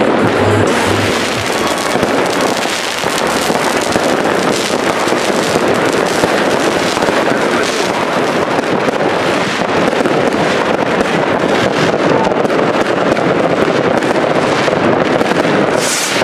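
Fireworks and firecrackers going off all around in a dense, continuous crackle of bangs, with a sharper crack near the end.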